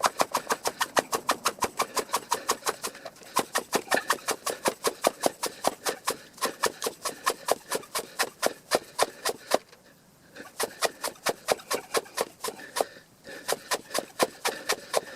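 Bicycle hub freewheel ticking in an even stream of sharp clicks, about five or six a second, as the wheel is turned by hand. The ticking pauses briefly three times.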